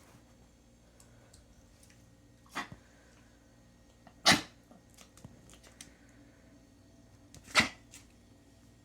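A dog breathing hard: three short, loud, noisy breaths spread over several seconds, the second and third the loudest.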